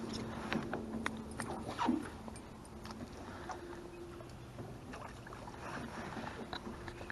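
Faint knocks and taps of gear being handled in a small fishing boat, over a faint steady hum that shifts up in pitch about halfway through.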